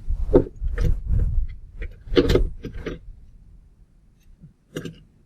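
Handling of a small hard-plastic window breaker and its mount: a run of sharp clicks and knocks in the first three seconds, then a few fainter taps and one more click near the end.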